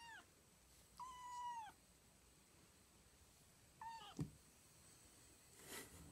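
Kitten meowing: the end of one meow at the start, a longer meow about a second in and a short one near four seconds, each falling in pitch at the end. A thump right after the third meow, and a brief rustle near the end.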